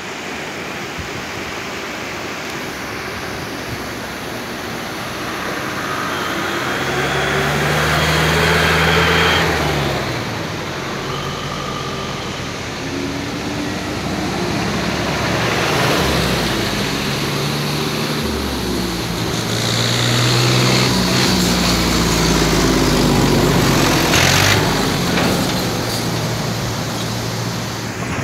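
Steady rush of a fast-flowing, muddy mountain river, with motor vehicles driving past on the bridge above it. One passes loudest about eight to ten seconds in, and more pass from about sixteen seconds on, their engines swelling and fading.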